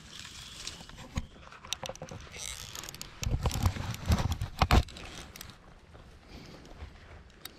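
Close handling noise of a camera being moved and gripped: rustling and scattered clicks, with a run of heavy knocks and thumps about three to five seconds in.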